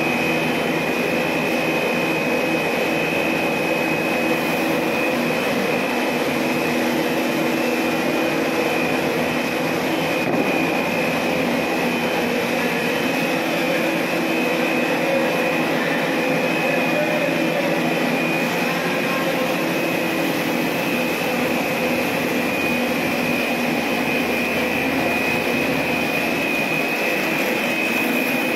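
Double-stage plastic scrap recycling extruder line running: a steady machine drone with several steady low hums and a steady high whine over it.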